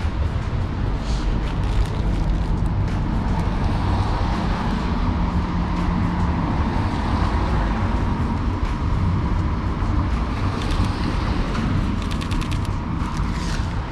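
Steady city street traffic noise: cars running on a wet road. A short run of quick clicks comes near the end.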